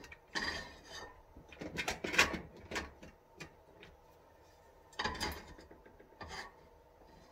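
Kitchen handling sounds: irregular knocks, clinks and rustles of cookware and utensils being moved about on a counter, the sharpest knock about two seconds in.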